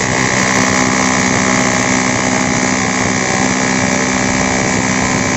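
Bosch GBH 2-26 DRE SDS rotary hammer running steadily under load as it hammer-drills into a concrete block. The hammer action hits hard again, the sign that the repair has restored its lost impact power.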